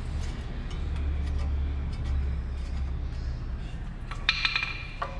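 A few light metallic clinks with a short ring about four seconds in, as tools work the cotter pin out of the outer tie rod end's castle nut, over a steady low hum.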